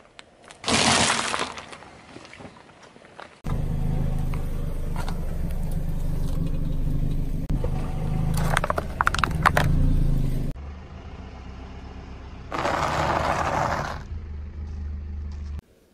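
A car tyre rolling slowly over objects and crushing them. A sharp crack of eggs breaking comes about a second in, then the car's engine runs steadily for several seconds with a crackling crush of a carded toy car near the middle, and a loud crunching of a pile of pretzels comes near the end.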